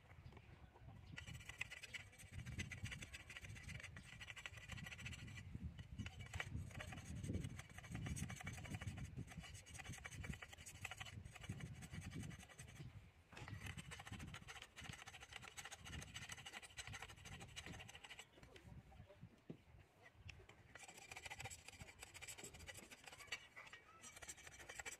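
Faint, irregular scratching and scraping of a bamboo rod being worked clean by hand, in uneven strokes with small clicks.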